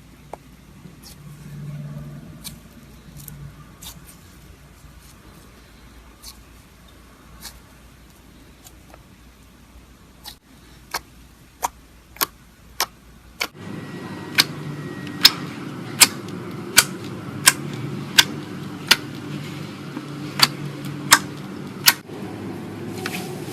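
Slime being squished, with sharp popping clicks: scattered at first, then a steady run of louder pops about one every two-thirds of a second from about halfway. Partway through, the background turns noisier with a low hum.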